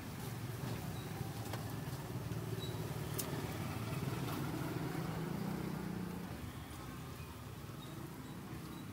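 Motorbike engine running nearby, growing louder around the middle and then easing off, with a few light clicks.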